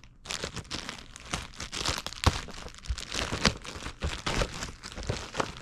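Product packaging crinkling and crackling as it is handled, a dense run of irregular crackles.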